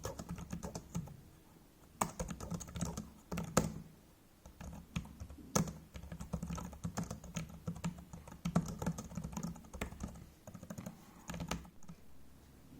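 Typing on a Xiaomi MIIIW Keyboard Air 85: irregular runs of key clicks, with a handful of louder, heavier keystrokes standing out, and short pauses between runs.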